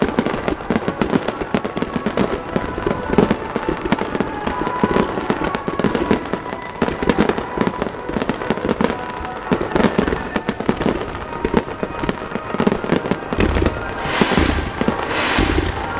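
Fireworks finale barrage: aerial shells and fan-shaped volleys of low-fired shots bursting in rapid, overlapping succession, a dense run of bangs and crackles. Near the end a hissing rush swells in over the bangs.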